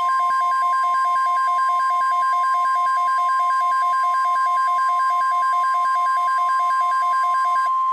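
NOAA Weather Radio 1050 Hz warning alarm tone: one loud, steady, high-pitched tone, the attention signal sent ahead of a watch or warning broadcast. A fast pulsing beep runs alongside it and stops shortly before the end.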